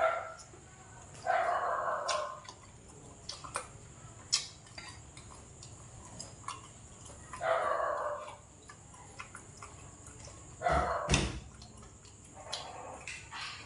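A dog whining four or five times, each whine about a second long, with sharp clicks of a spoon and chopsticks against bowls in between.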